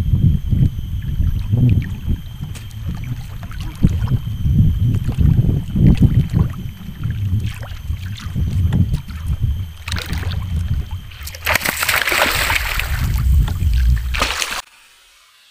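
Gusty low rumble of wind and water around a small wooden boat, with scattered knocks. About eleven seconds in, loud splashing breaks out at the surface beside the boat, where a hooked fish is thrashing. The sound then drops away suddenly near the end.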